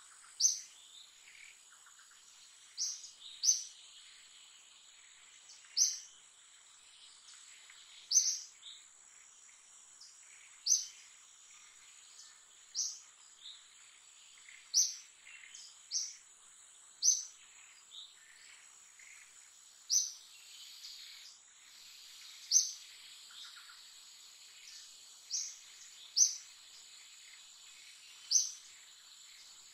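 Outdoor forest ambience: short, sharp high chirps, each falling in pitch, repeat about every two to three seconds over a steady high-pitched insect drone.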